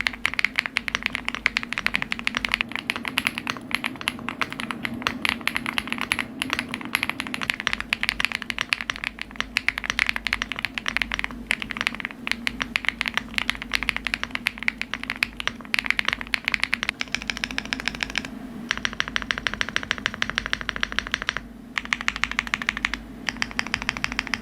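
Mechanical keyboard being typed on fast, a dense continuous stream of key clicks and clacks. The sound changes abruptly a few times in the last third.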